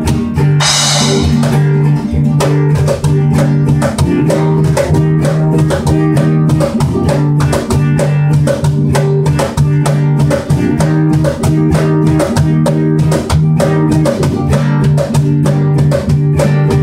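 Instrumental break of a ballad band: guitar over a steady bass line and drum kit beat, with a cymbal crash about a second in.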